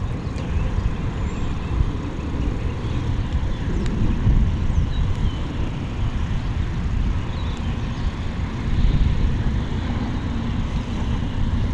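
A steady low outdoor rumble with a light hiss above it and a few faint, short high chirps.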